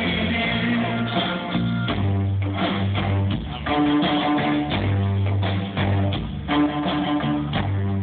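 Live rock band playing an instrumental passage, with electric bass, guitars and drums, heard from the audience seats.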